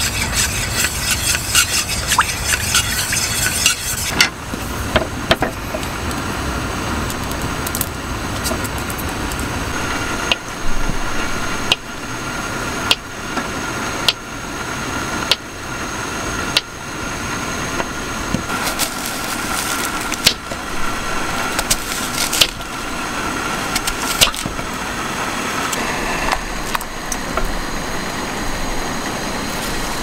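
Chopsticks stirring and clinking in a small aluminium camping pot, then a kitchen knife slicing through a block of ham and tapping on a wooden cutting board, one sharp tap about every one to two seconds, over a steady background hiss.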